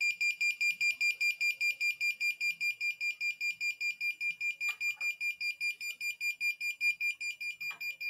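Piezo buzzer of a flame-and-smoke fire-alarm circuit sounding a high beep, pulsing about six times a second at a fixed pitch, starting abruptly: the alarm triggered by a flame held at the infrared flame sensor.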